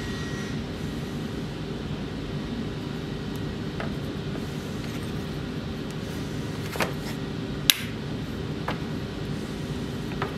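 A few light clicks and knocks of a wooden handle block meeting the steel guard, pommel and bench as it is dry-fitted onto a knife's tang, the sharpest about three-quarters of the way through. A steady low machine hum runs underneath.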